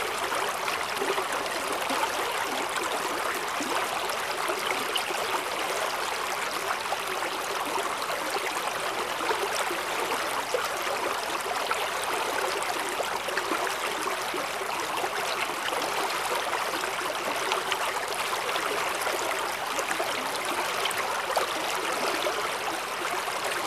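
Mountain valley stream flowing steadily, an even rush of water that is mostly hiss with little low rumble.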